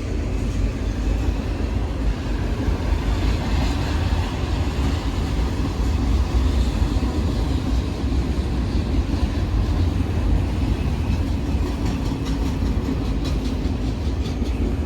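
Freight train's autorack cars rolling past at slow speed: a steady, heavy rumble of steel wheels on rail, with faint repeated clicks near the end.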